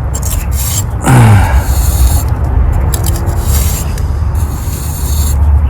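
A steel pointing trowel scraping and cutting through wet sand-and-cement mortar in brick joints, in short strokes that start and stop, over a steady low hum.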